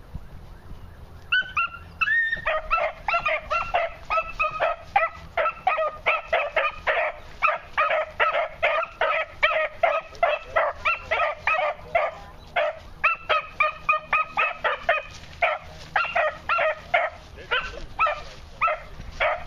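Young beagle pup barking in a rapid, unbroken string of short, high yips, about three a second, starting about a second in: a newly started hound giving voice on a scent trail through brush.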